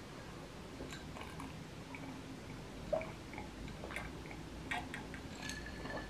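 A person quietly sipping and swallowing a drink from a glass, with a few faint small clicks and gulps scattered through.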